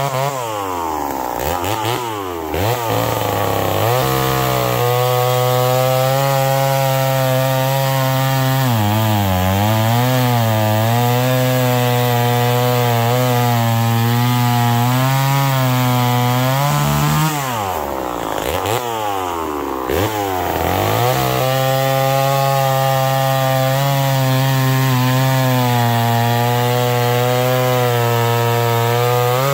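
Lombard two-stroke chainsaw with a freshly sharpened chain running at full throttle and cutting through a log. The revs dip and pick back up under load a few times, at the start, briefly mid-cut and again about two-thirds of the way through.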